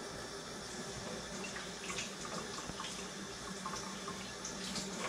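Kitchen tap running steadily into the sink, with a few faint clinks of handling.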